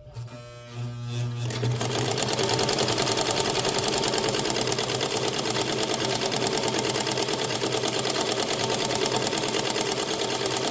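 Hamilton sewing machine running under its motor while it sews a zigzag pattern stitch. It winds up to speed over the first couple of seconds, then runs steadily with a fast, even needle rhythm.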